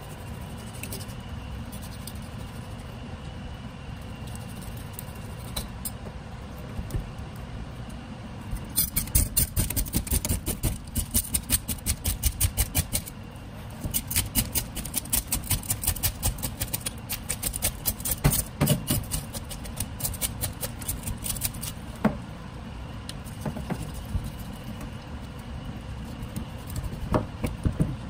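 Kitchen knife scraping the scales off a mullet on a plastic cutting board, in quick rasping strokes about four or five a second, in runs starting about 9 seconds in and again near 14 seconds. Before the scraping, only a steady low background hum.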